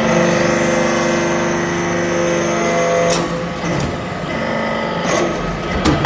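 Hydraulic iron chip briquetting press working: its hydraulic pump hums steadily in several tones as the ram presses metal chips in the mould, then the hum stops about halfway through. Sharp clunks of the ram and mould follow about halfway through and again near the end.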